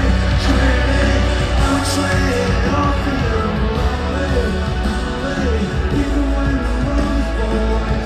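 Live rock music from a concert: a loud band with heavy bass under a singing voice.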